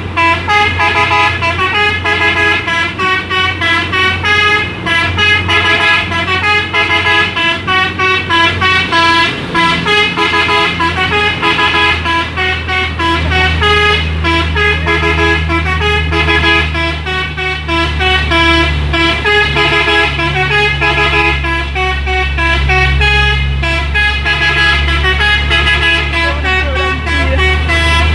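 Multi-tone telolet horn of a Hino dump truck playing a fast, unbroken run of short melody notes, over the low drone of the truck's diesel engine, which grows louder about twelve seconds in.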